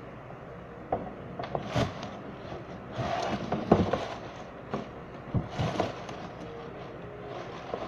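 Handling noise from things being moved about close to the microphone: irregular scrapes, rustles and knocks, the loudest knock a little under four seconds in.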